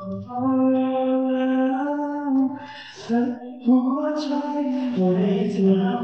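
Two male singers singing a pop song live into microphones through a PA, holding long sustained notes, with a short break about halfway and a rising phrase after it.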